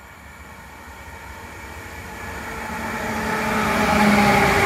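Electric locomotive approaching and passing at speed, its rolling noise on the rails and a steady whine of several tones growing louder to a peak about four seconds in.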